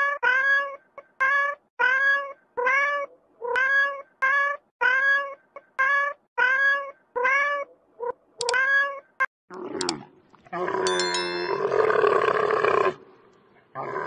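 A cat meowing over and over: about a dozen short meows in nine seconds, each rising and falling in pitch. About ten seconds in the meows stop, and a long, loud, rough bellow from a larger animal follows.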